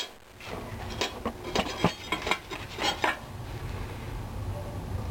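Cut steel blade blanks clinking and scraping against a steel plate as they are picked up and handled: a run of sharp metal clinks over about two seconds, then a low steady hum.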